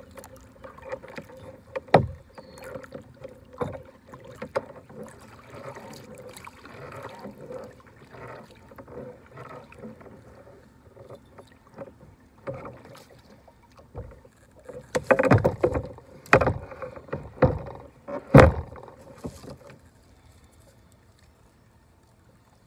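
Kayak being paddled: water splashing off the paddle, with sharp knocks of paddle and gear against the hull. A run of louder knocks comes about fifteen to eighteen seconds in, after which it goes quiet.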